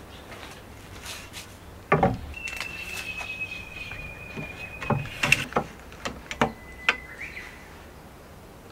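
A wooden board and a steel tape measure being handled on a wooden deck: a thud about two seconds in as the board is set down, then a thin high whine lasting a few seconds and a run of sharp clicks and knocks.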